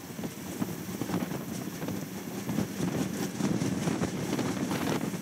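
Wind buffeting the microphone: an unsteady, gusty low rumble that surges and drops.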